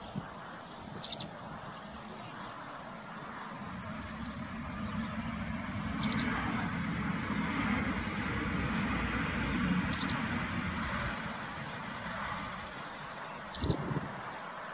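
A bird gives a short, high chirp four times, about four seconds apart, over a low rushing background noise that swells through the middle.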